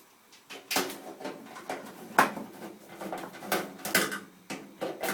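Screwdriver turning screws out of a microwave's metal casing: a run of irregular clicks and short scrapes.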